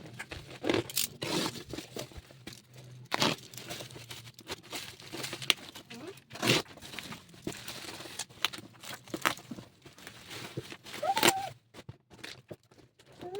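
Packaging being opened by hand: irregular tearing, crinkling and crunching of plastic and cardboard. A cat meows once about 11 seconds in.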